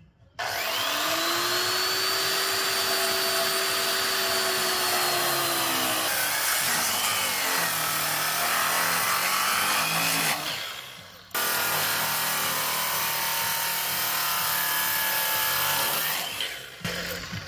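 Makita circular saw spinning up with a rising whine and cutting into a pressure-treated 4x6 timber, running steadily under load. It stops briefly about ten seconds in, cuts again, and winds down near the end.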